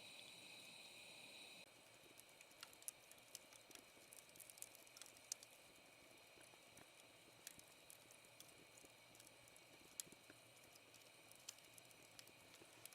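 Faint, irregular small clicks and ticks over a quiet hiss, after a steady high hiss that cuts off abruptly about two seconds in.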